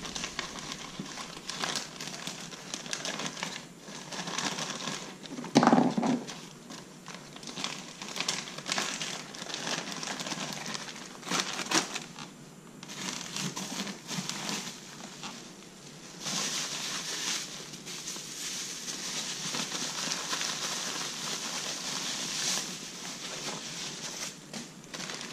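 Plastic parts bags and bubble wrap crinkling and rustling as they are handled and unwrapped, with scattered clicks and a couple of louder knocks.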